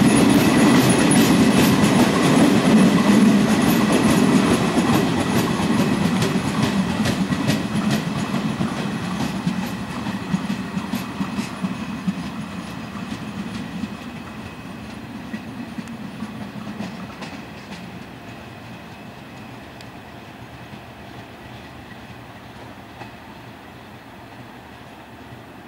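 Locomotive-hauled passenger coaches rolling past, wheels clacking over the rail joints. The sound fades steadily as the train draws away.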